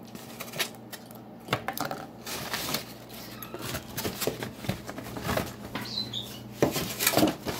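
Irregular clicks, knocks and scrapes of kitchen handling: leftover food scraped out of a foam takeout container onto a metal baking sheet, then the sheet pan being moved, with the louder knocks near the end.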